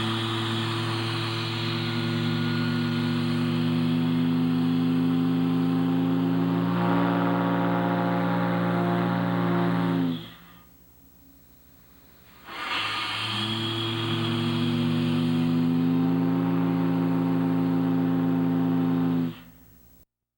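12-inch Union Water Meter three-bell steam gong blown on compressed air: two long blasts of a deep, steady chord, about ten and seven seconds long, the second sliding up in pitch as it opens.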